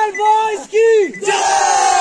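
A group of young men yelling and whooping together: a few short yells, then a long drawn-out yell that falls in pitch, starting a little past the middle.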